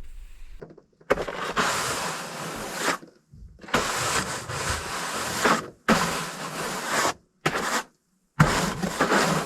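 A brush sweeping snow and frost off a light airplane, heard as five separate stretches of scratchy hissing, each starting and stopping sharply.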